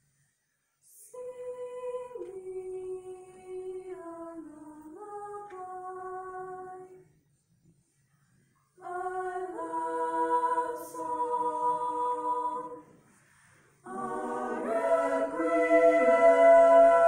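Mixed high-school choir singing slow phrases separated by short pauses. A single melodic line opens, and the later phrases swell into full chords, the last the loudest.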